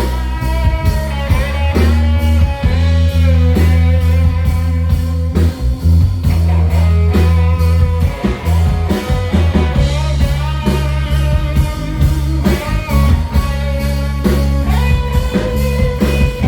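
Rock band playing live with no vocals: sustained electric guitar lines over a heavy bass and a steady drum beat.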